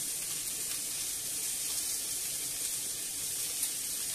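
Chicken pieces and red peppers frying in a pan, a steady sizzle.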